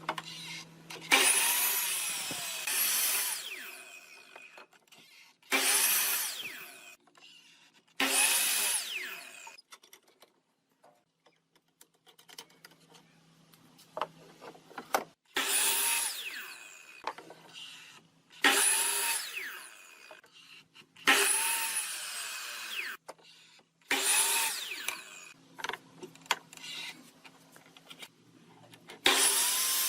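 A handheld power tool run in short bursts on wood, about nine times. Each time the motor whine climbs and then winds down as the trigger is let go, with small knocks between the bursts.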